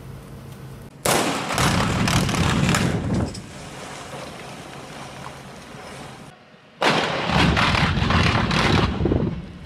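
Two rock blasts under blasting mats. Each is a sudden muffled bang about a second in and again near the end, followed by about two seconds of rumbling.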